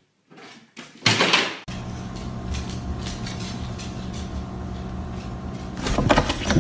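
A loud clatter of a wooden cupboard or wardrobe door about a second in, then a steady low hum with scattered knocks, and another loud noise near the end.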